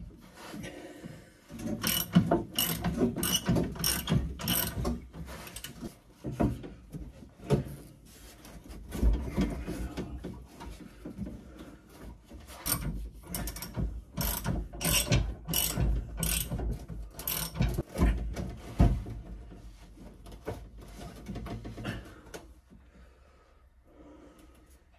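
Hand ratchet wrench clicking in short runs of strokes, about two strokes a second, with a second run about halfway through and a few knocks of metal parts in between.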